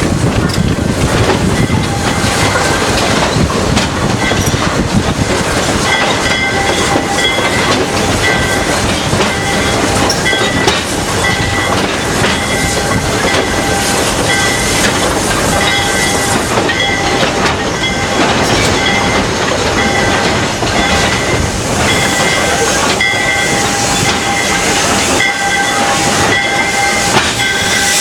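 Train hauled by steam locomotive Flagg Coal #75 rolling along the track, its wheels clicking over the rail joints. A high-pitched tone keeps breaking in and out.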